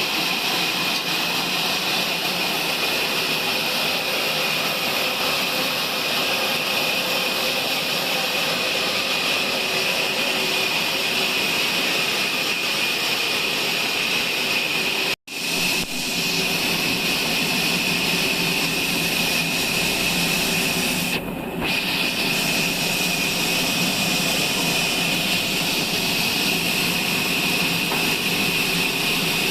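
Sawmill machine running and sawing through a log: a steady, high-pitched saw noise that breaks off for an instant about halfway through.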